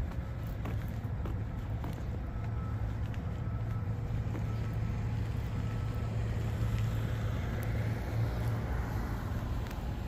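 Steady low rumble of vehicle traffic with a hum, swelling slightly in the second half.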